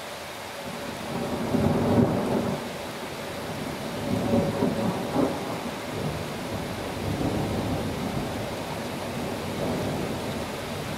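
Thunder rumbling over steady rain. A long roll swells about a second in and peaks near two seconds, a second roll comes around four to five seconds, and fainter rumbles follow.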